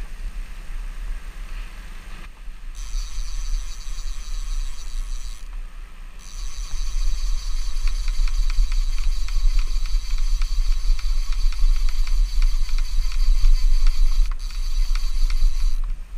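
Fishing reel's clicker buzzing in a high-pitched whine in long spells as line runs through it, with rapid clicks through the middle part, over a low steady rumble.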